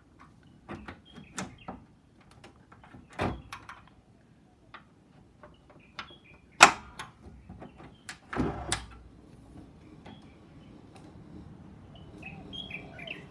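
A string of knocks and clatters, the loudest a sharp knock about six and a half seconds in, followed soon after by a longer scrape. Birds begin chirping faintly near the end.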